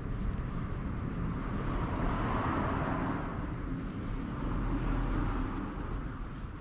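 A vehicle passing, its noise swelling to a peak about two and a half seconds in and then fading away, over a low steady rumble.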